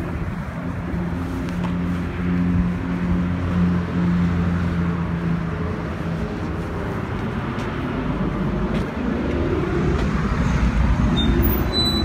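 Steady low hum of a car engine running nearby, over road traffic noise. The hum is strongest for the first half and then fades.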